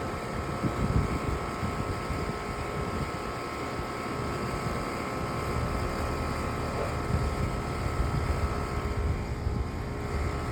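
Outdoor air conditioner condenser unit running: its fan whirring with a steady hum.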